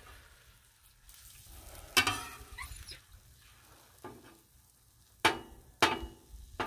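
Fried eggs sizzling faintly on a Blackstone flat-top griddle as a steel spatula scrapes under them and flips them, knocking on the steel plate. There is a louder clank about two seconds in, and two sharp clanks a little over half a second apart near the end.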